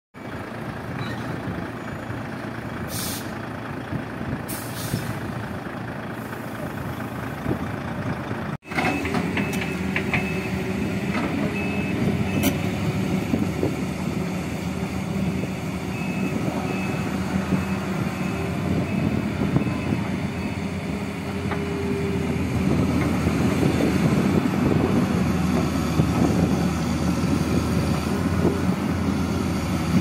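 Heavy diesel dump truck engine running, with two short air hisses from its air brakes. After a cut, a Caterpillar 325B hydraulic excavator's diesel engine runs while a reversing alarm beeps steadily for about ten seconds; the engine grows louder near the end.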